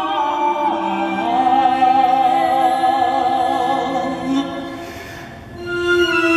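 Musical-theatre music with a long sung note held with vibrato over accompaniment. The note fades out about four to five seconds in, and a new sustained chord swells in near the end.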